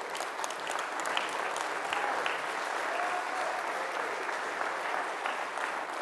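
Congregation applauding: many people clapping steadily.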